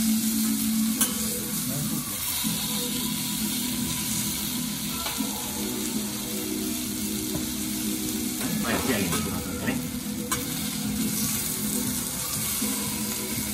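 Blocks of Ozaki wagyu beef sirloin sizzling steadily on a hot steel teppanyaki griddle, with a few light clicks of the chef's metal knife and fork against the griddle.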